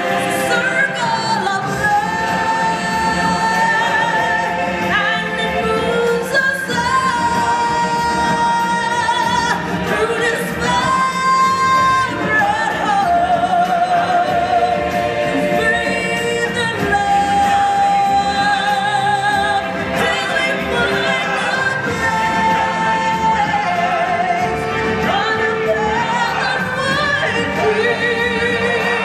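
Stage-show song: singers' voices over backing music, with several long held notes.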